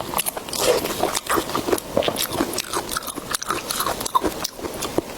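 A person chewing and biting food close to the microphone: irregular short mouth clicks and smacks of mukbang eating.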